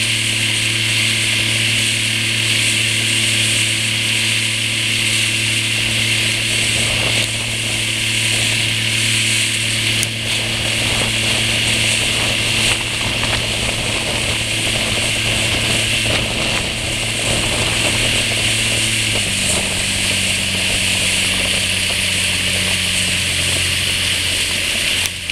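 Motorboat engine running steadily at speed over the hiss of the churning wake and spray. About 19 seconds in, the engine drops to a lower, slower note as it is throttled back.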